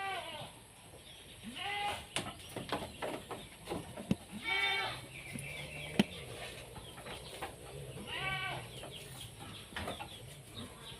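Goats bleating, four short wavering calls spread across the few seconds, with a few sharp knocks in between, the loudest about six seconds in.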